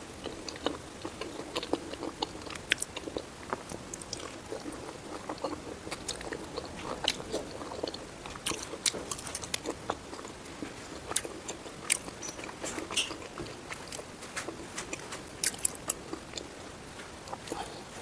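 A person biting and chewing food close to the microphone, with many sharp, irregular wet clicks and crunches.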